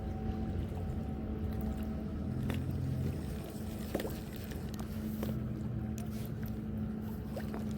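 An engine running steadily with a low hum; its pitch shifts slightly a couple of times. A few faint clicks sound over it.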